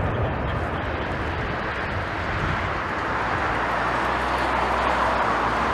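Jet airliner passing on its landing approach: a continuous rushing engine noise that swells louder in the second half, with a low steady hum underneath.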